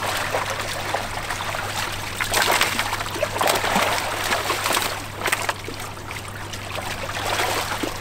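Shallow water splashing and sloshing as netted fish thrash and are lifted into plastic crates by fishermen wading among them, in irregular splashes with the biggest about two and a half, three and a half and five seconds in.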